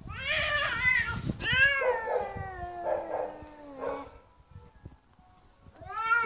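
Two cats yowling and caterwauling at each other in a fight: wavering, drawn-out calls for about the first four seconds, one sliding slowly downward, then a short lull and another loud yowl near the end.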